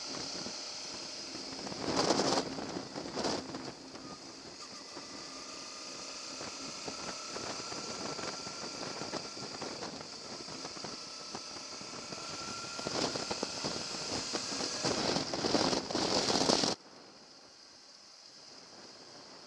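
Suzuki V-Strom motorcycle on the move: a steady rush of wind and road noise with the engine underneath. It swells louder about two seconds in and again for a few seconds near the end, then cuts off suddenly to a quieter hum.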